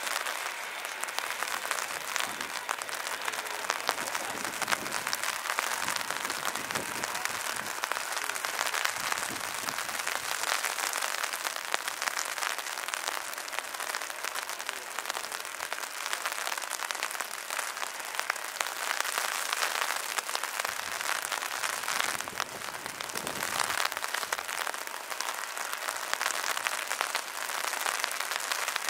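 Heavy rain falling steadily: a dense hiss of countless small drop impacts.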